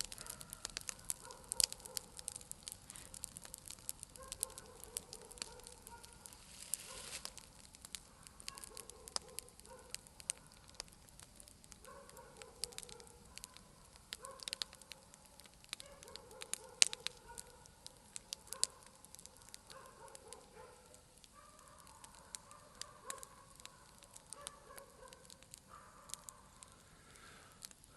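Bonfire crackling, with a steady run of small snaps and a few much louder pops. Behind it, a pitched sound recurs every second or two in short, slightly wavering tones, like birds calling or wet wood whistling.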